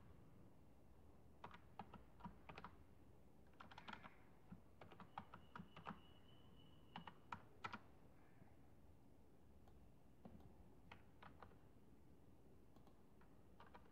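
Faint computer keyboard typing: short runs of keystrokes separated by pauses.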